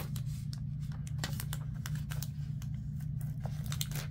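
Paper sticker sheets and a clear plastic sleeve rustling and crinkling as they are handled, in a string of short irregular crackles, over a steady low hum.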